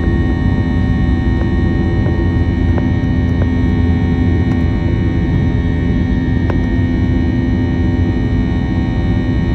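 Airbus A321 cabin noise: a loud, steady drone of airflow and its IAE V2500 jet engines, with a steady hum and a few faint clicks from the cabin.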